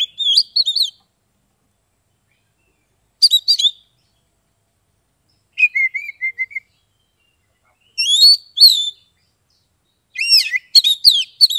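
Caged oriental magpie-robin (kacer) singing in short, loud, clear whistled phrases. There are about five bursts of sliding notes with pauses of one to two seconds between them, and the last burst near the end is the busiest.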